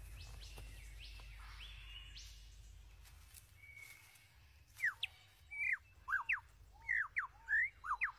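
Superb lyrebird singing: after a few seconds of faint forest background, a quick run of loud, sharp whistled notes sweeping up and down, about three a second, starts about five seconds in.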